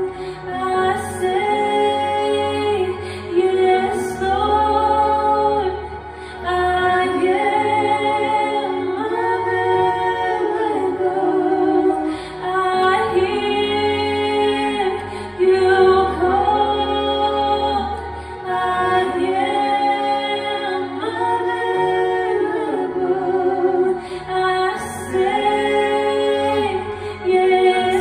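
A woman singing a song over instrumental accompaniment, in long held notes with vibrato, with a steady bass underneath.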